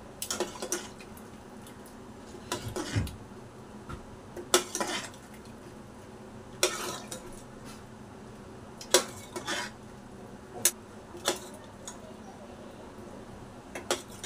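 Metal ladle clinking and scraping against a steel pressure cooker and a steel bowl as curry is ladled from one into the other, with sharp irregular clinks every second or two.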